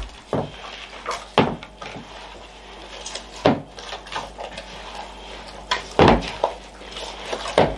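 Hands kneading stiff rye dough in a bowl, the bowl knocking against a wooden tabletop now and then, about five knocks at uneven intervals.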